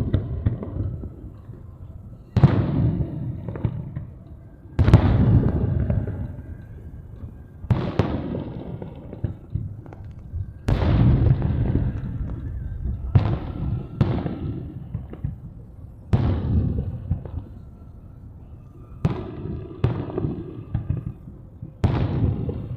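Aerial firework shells bursting one after another, about nine in all, every two to three seconds. Each is a sharp bang that trails off into a long low rumble.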